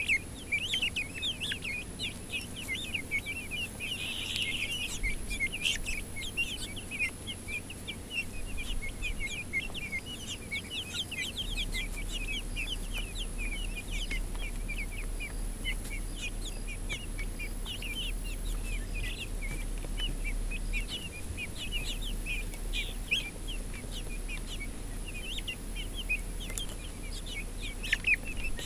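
Young chickens peeping without pause, many short falling cheeps overlapping in a dense chatter.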